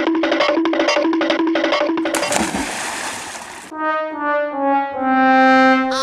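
Background music with brass-like tones: a short note pattern repeating about three times a second, broken about two seconds in by a hissing rush of noise that lasts about a second and a half and cuts off suddenly, then a horn-like melody of held notes stepping in pitch.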